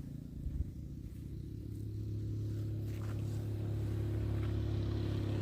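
An engine running steadily at an even speed, growing slightly louder.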